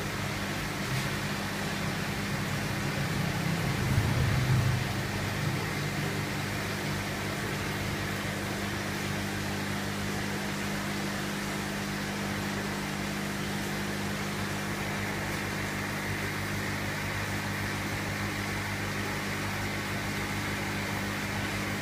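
Aquarium air pump running with a steady low hum over a hiss of airstone bubbling. A brief louder low rumble about four seconds in.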